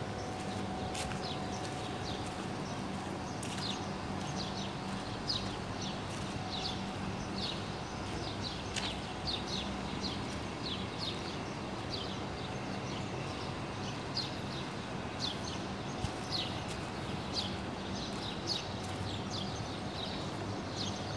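Footsteps at a steady walking pace on a dusty, gritty dirt lane, about one and a half steps a second, over a steady low background hum.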